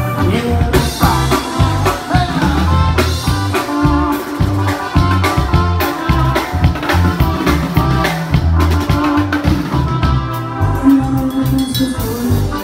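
Live band music played loud through a stage sound system: keyboards, electric guitar, bass and drums in a steady beat.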